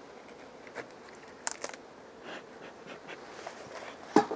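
Beehive boxes being pried apart with a hive tool: scattered cracks and clicks as the propolis-glued honey super breaks loose, with a sharper crack near the end, over a faint hum of honey bees.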